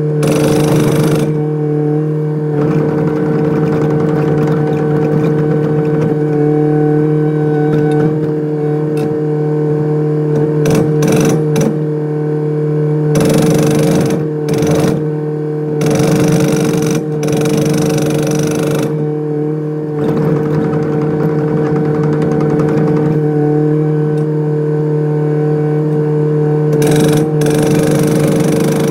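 Kubota excavator's diesel engine running steadily, with a hydraulic breaker hammering in intermittent bursts of a second or so.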